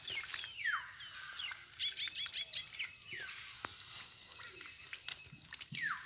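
Wet squelches and small splashes of hands groping through shallow mud and water in a rice paddy, with a run of short high chirps falling in pitch, several in quick succession about two seconds in.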